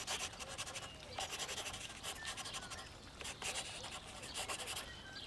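Pencil lead scratching across paper in quick, short sketching strokes.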